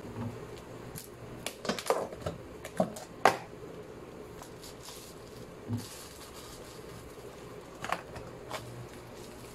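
A plastic tub lid is pried off with a run of sharp clicks and snaps, then a plastic bag of raw meat is lifted out with crinkling rustles. A few more light clicks of plastic containers being handled follow near the end, over a low steady hum.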